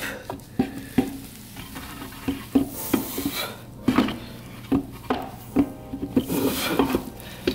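Irregular metal-on-metal clinks and knocks with some scraping as a 4L80E transmission's center support assembly is lowered into the case and worked down until it seats fully.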